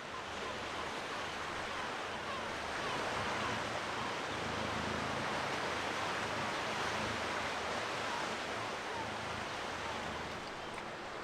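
Sea surf washing against the shore: a continuous hiss that swells a little midway and then eases.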